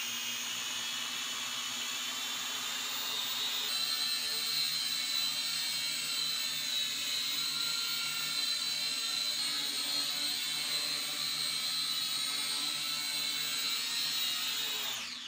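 Small toy quadcopter drone's electric motors and propellers whining steadily in flight, then winding down near the end as it lands.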